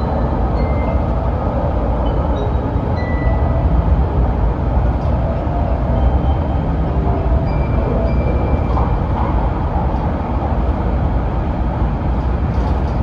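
JR West 700 series Shinkansen train running at speed: a steady, loud running noise with a deep rumble, and faint short high tones that come and go.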